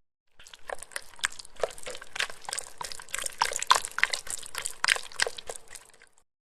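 Made-up sound effect: a dense run of rapid, irregular clicks and crackles lasting about six seconds over a faint steady tone, fading out near the end.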